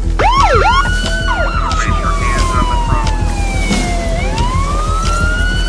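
A siren starting with a few quick up-and-down yelps, then wailing in long slow falls and rises, over background music with a steady beat.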